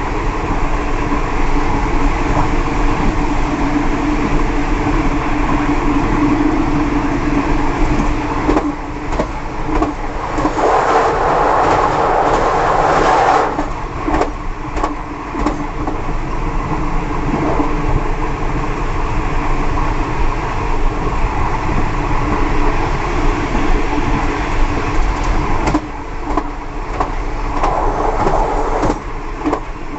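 Steel wheels of a passenger train's last coach running along the rails at speed, heard from the rear of the train, with clicks as the wheels cross rail joints. About ten seconds in, the running noise grows louder and fuller for roughly three seconds as the train crosses a steel truss bridge, then drops back.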